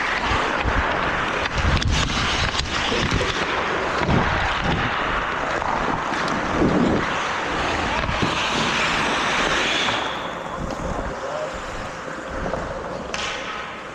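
Wind rushing over a moving microphone during hockey play, with scattered sharp clicks and knocks of sticks and puck; the rushing eases about ten seconds in.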